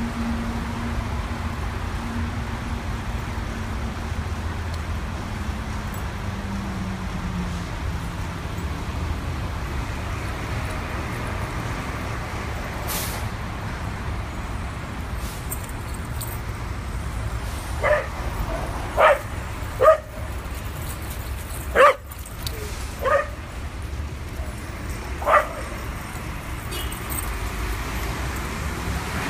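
Dog barking in short single barks, about six of them in the second half, over a steady rumble of road traffic.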